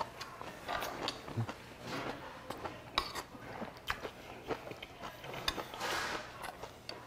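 Close-miked chewing of a mouthful of food, with several sharp clicks as a metal spoon touches the soup bowl.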